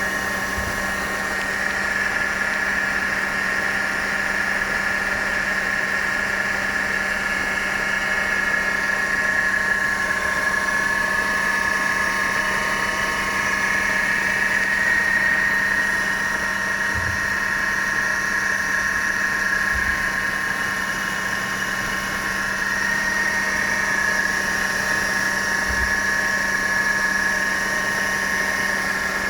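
Mercedes-Benz W211 E200 Kompressor's supercharged four-cylinder engine idling, with a steady high-pitched whine over the engine note that wavers slightly in pitch: the abnormal noise attributed to the supercharger.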